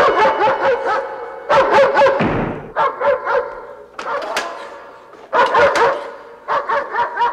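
A dog snarling and barking again and again, in about five spells.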